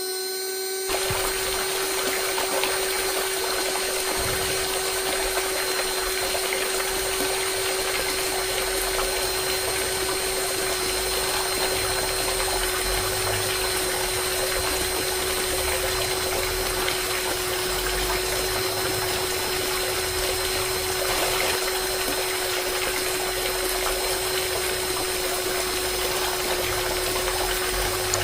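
Small electric water pump running steadily with a constant hum, water rushing and splashing. It starts about a second in as the music stops.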